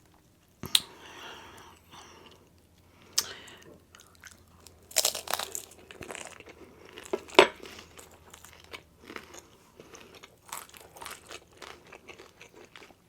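Chewing and crunching of crispy fried rolled tacos, with a handful of sharp crunches spread through, the loudest about seven seconds in.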